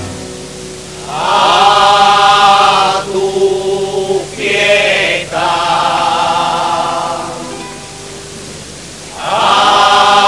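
Music with singing: long held vocal notes in phrases of a couple of seconds each. There is a quieter lull shortly before a new phrase begins near the end.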